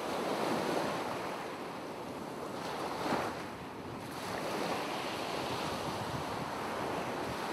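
Ocean waves washing, a steady rushing surf that swells briefly about three seconds in.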